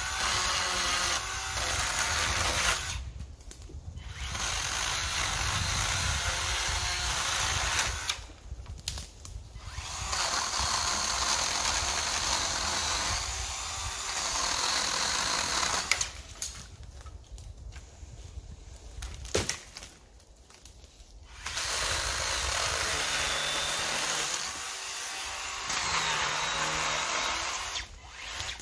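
Makita DUC252 2x18V cordless one-handed chainsaw running and cutting through small branches, in several bursts of a few seconds each with short pauses between.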